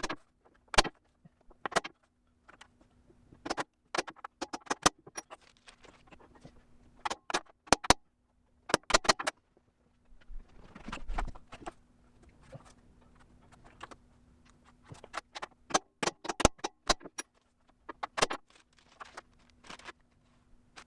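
Hammer tapping a center punch into sheet steel to knock in reference marks: sharp metallic taps at irregular intervals, sometimes two or three in quick succession.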